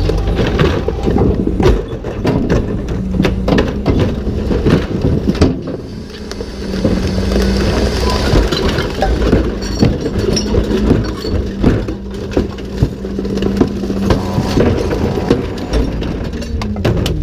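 Rear-loader recycling truck running, with the hydraulic cart tipper humming steadily as it lifts a recycling cart and tips it over the hopper. Recyclables clatter and crash into the hopper and plastic carts knock against the tipper.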